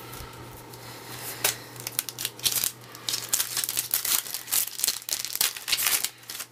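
Plastic wrapper of a 2012 Topps Opening Day baseball card pack being torn open and crinkled by hand, a dense run of sharp crackles, over a faint steady low hum.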